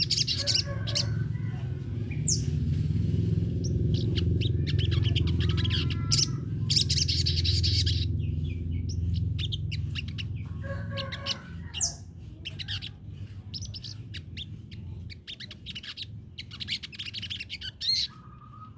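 A sogon songbird chirping in rapid bursts of high, trilled notes, repeating every few seconds, over a steady low rumble.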